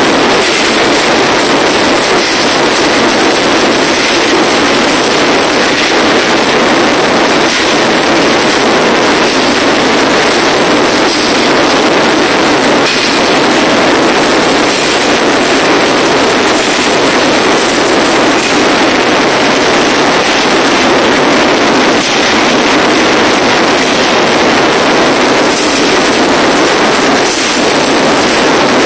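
Live industrial noise music, an unbroken wall of loud, distorted noise with no clear melody or beat, picked up by a phone microphone close to its limit.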